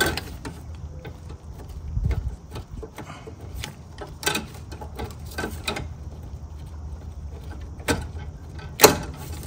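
Scattered light metallic clicks and taps as brake hard-line fittings are handled and threaded into a brake master cylinder, with a duller knock about two seconds in and a sharper click near the end, over a steady low hum.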